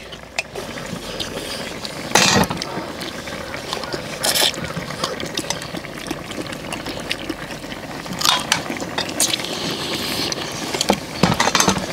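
People eating pork back-bone stew: chewing and sucking meat off the bones, with metal spoons and tongs clicking against stainless bowls, and a few louder short bursts.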